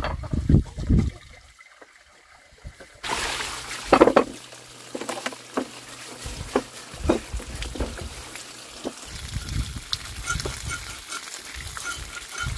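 Water trickling and splashing, with scattered clicks and knocks; a steady hiss comes up suddenly about three seconds in.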